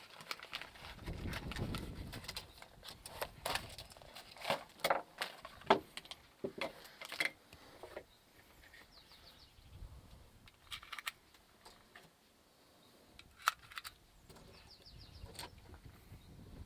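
Scattered sharp metallic clicks and knocks of a 1911 pistol and its magazine being handled, with a couple of louder clacks about six seconds in and again near the end.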